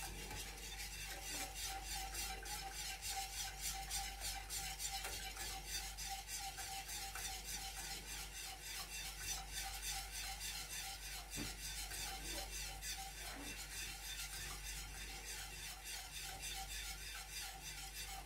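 A spoon scraping round and round a saucepan in steady, repeated strokes as custard cream of milk, flour, eggs and sugar is stirred while it heats and slowly thickens.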